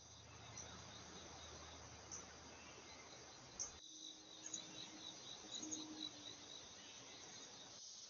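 Faint, steady insect chirping: a high, even trill with quick pulses. The sound cuts out briefly about four seconds in, where one trail-camera clip gives way to the next.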